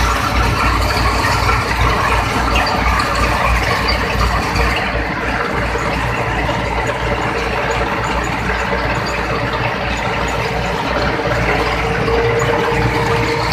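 Dasmesh combine harvester running, its engine and machinery making a steady, loud mechanical noise with a pulsing low rumble.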